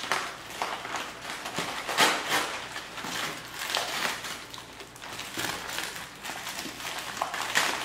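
Dry plaster of Paris powder being tipped from its bag into a papier-mâché pot: an uneven rustling hiss with irregular knocks and scrapes.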